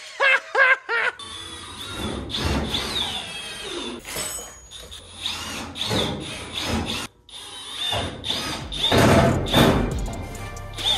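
Power drill driving sheet metal screws into a truck's steel quarter panel, running in repeated bursts with a high squeal as the screws bite into the metal.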